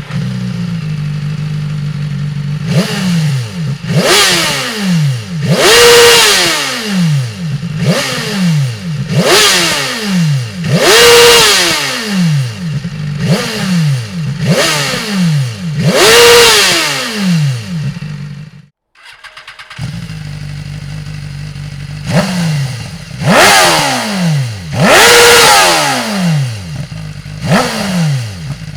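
BMW S1000RR inline-four sport-bike engine, fitted with Dominator aftermarket exhaust parts, idles and is then blipped repeatedly, with a dozen or so sharp revs that each rise and fall quickly. About two-thirds of the way in the sound cuts out briefly, then idling resumes and the blips start again.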